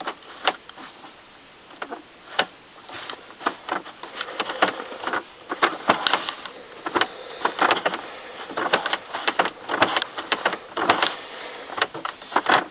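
Aftermarket A/C control knobs on a Nissan Versa's dashboard being turned by hand: an irregular run of plastic clicks and knocks, sparse at first and coming thick and fast from about three seconds in.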